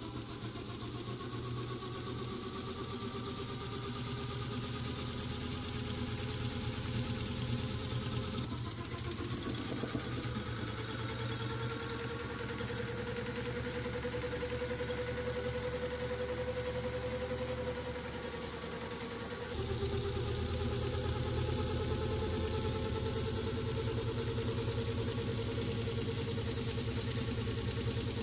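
Electric jigsaw motor running steadily, driving a mesh sieve of sand back and forth on drawer-slide rails to sift it. The sound jumps to a louder level about two-thirds of the way through.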